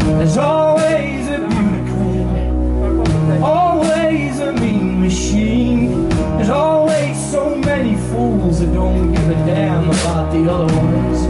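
Live band performance: a male lead singer sings over drums, bass and guitars.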